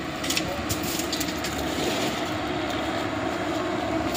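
Large tracked excavator's diesel engine running steadily at idle, with a few light clicks in the first second and a half.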